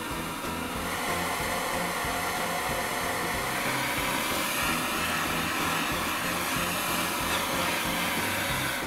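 Butane gas torch burning, a steady hissing rush of the flame that holds with little change.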